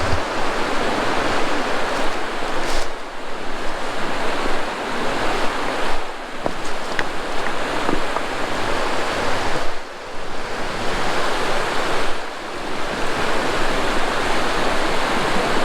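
Creek water rushing, a loud steady hiss of running water that dips briefly a few times.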